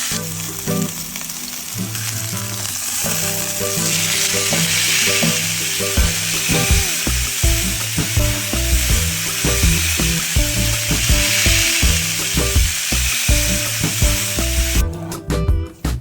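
Meat sizzling as it cooks, a steady hiss over background music with a bass line and beat; the sizzle stops suddenly about fifteen seconds in while the music carries on.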